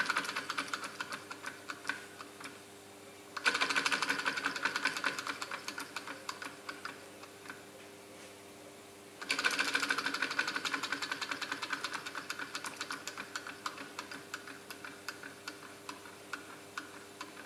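SEL Junior 1530 toy steam engine running in short spurts of rapid ticking. Twice more it starts up suddenly, and each spurt slows and fades away over a few seconds. It is struggling for steam from an undersized fuel-tablet burner.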